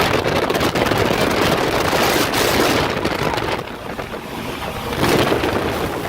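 Strong wind buffeting the microphone, a loud rumbling rush that eases briefly a little past the middle and then picks up again.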